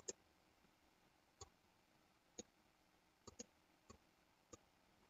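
Faint, sparse clicks from a computer mouse and keyboard, about seven in five seconds, two of them in quick succession a little past the middle; otherwise near silence.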